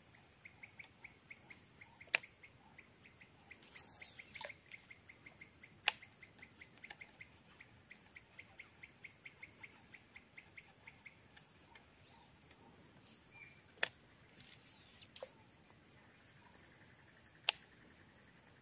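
Faint insect chorus: a steady high buzz of crickets with a repeating chirp about four times a second through the first eleven seconds or so. A few sharp clicks stand out above it.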